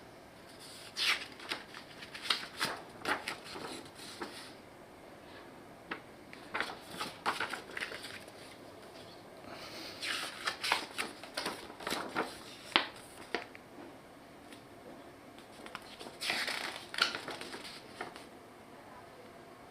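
Packaging and equipment being unpacked and handled: irregular clicks and knocks with short rustling bursts, busiest around the middle and again near the end.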